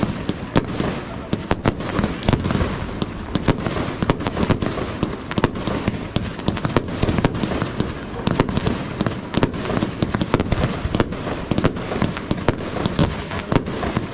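Fireworks display: aerial shells and crackling stars bursting in quick succession, several sharp bangs a second overlapping one another.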